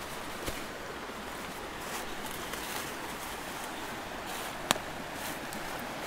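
Steady rush of a mountain creek cascading over granite boulders, with footsteps through dry autumn leaves and one sharp click about three-quarters of the way through.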